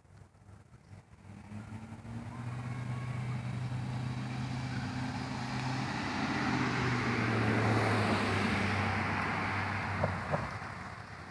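A motor vehicle passing by: a steady engine hum with rushing noise that swells over several seconds, peaks, then fades away. Two short ticks come near the end.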